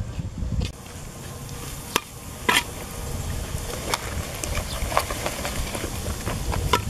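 Metal spoon scraping and clinking against fried catfish pieces as they are scooped from a leaf-lined bowl, with several sharp knocks spread through.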